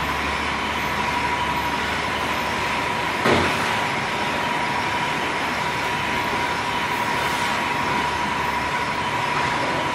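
Stainless-steel batch fryer machinery running, a steady mechanical noise with a constant high whine, and a single knock about three seconds in.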